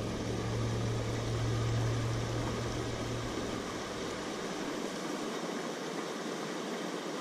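Steady rush of flowing creek water, with a low steady hum under it that stops about three and a half seconds in.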